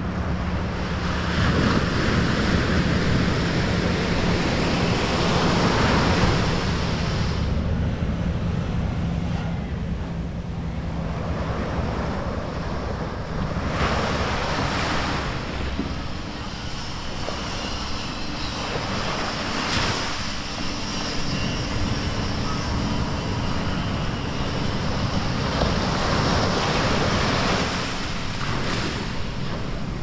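Small ocean surf breaking and washing up a sandy shore, the wash swelling and ebbing several times, one surge every few seconds. A steady low rumble of wind on the microphone lies under it.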